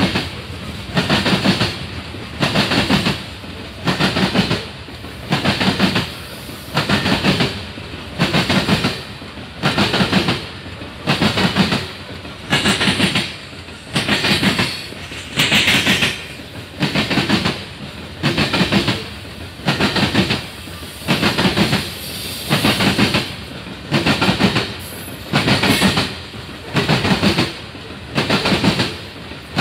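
Freight train of open-top coal cars rolling past close by. Wheels clatter rhythmically over the rail joints, about once a second as each car's trucks cross.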